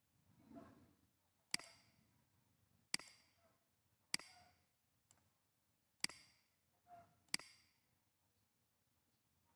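Computer mouse clicking: five sharp single clicks at irregular intervals of one to two seconds, each with a short fading tail, plus a few fainter ticks.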